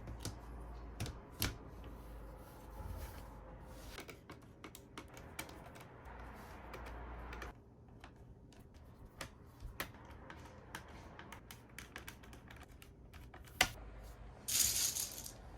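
Scattered plastic clicks and taps of a Razer BlackWidow Lite mechanical keyboard being reassembled, with keycaps pressed onto the switches. A brief rustling hiss comes near the end.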